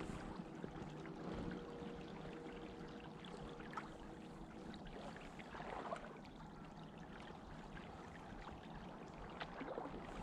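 Faint water trickling and lapping, with a faint steady hum that stops about five seconds in.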